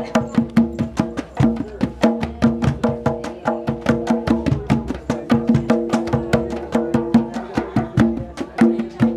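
Hand drum played fast with bare hands, about five sharp strikes a second, over steady pitched notes that shift every couple of seconds.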